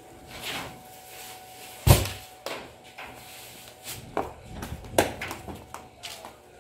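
Several dull thumps of heavy grain sacks being dropped and stacked, the loudest about two seconds in and another about five seconds in, with footsteps on a concrete floor.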